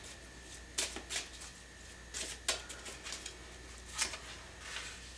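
Tarot cards being handled while side cards are drawn from the deck: about six light, scattered clicks and taps of card on card.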